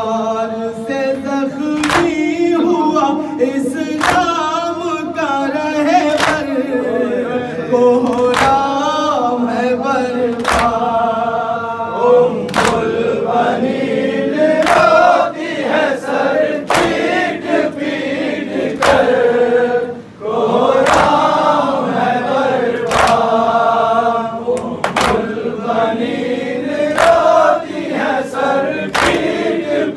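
A noha, a mourning lament, chanted by a lead reciter at a microphone with a group of men singing along. It is punctuated by rhythmic chest-beating (matam), a sharp slap recurring every one to two seconds. The chant breaks off briefly about twenty seconds in.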